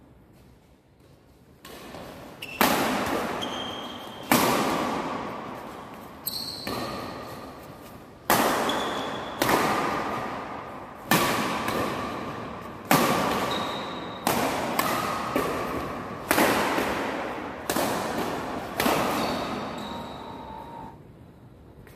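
Badminton doubles rally: a dozen or more sharp racket strikes on the shuttlecock, roughly one every second or two, each ringing out with a long echo in a large hall. Short squeaks, likely court shoes on the floor, come between the hits, and the rally ends about a second before the end.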